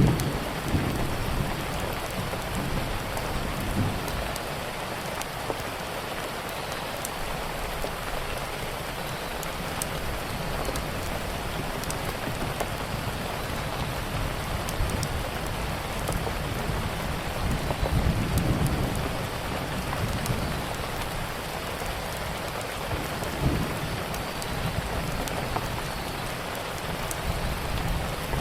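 Steady heavy rain hissing, with low rumbles of thunder swelling up several times, and scattered sharp pops of a crackling wood fire.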